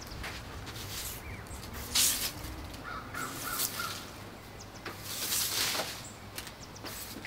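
Blue push broom sweeping dry dead leaves and twigs across a wooden deck in several separate strokes, with a bird calling a few times in quick succession midway.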